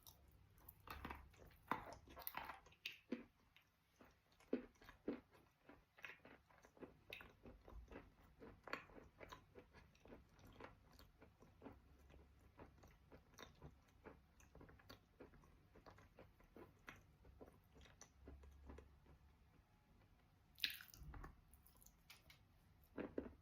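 Wet eating chalk being chewed: a steady run of soft crunches, about one or two a second, with a louder crunch near the end.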